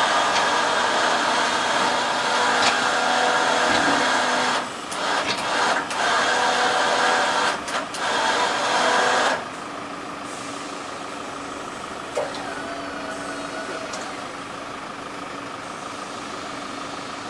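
Small truck-mounted crane's battery-powered electric motor running steadily as it lowers a load on its wire, stopping and restarting briefly twice, then cutting out about nine seconds in. A quieter steady hum carries on after it stops.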